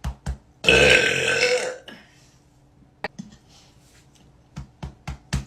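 A woman's loud burp, about a second long, starting just under a second in, with several short clicks before and after it.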